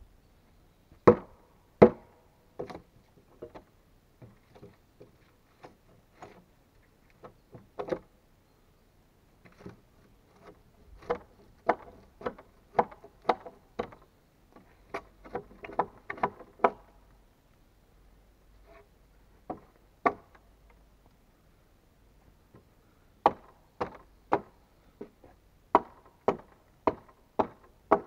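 Ax striking wood: sharp chopping knocks in runs of several strokes, about two a second, with pauses between the runs.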